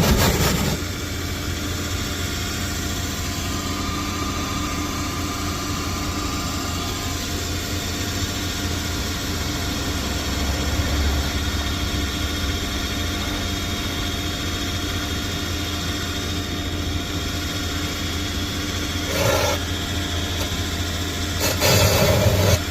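An engine running steadily at idle, with two short louder noisy bursts near the end.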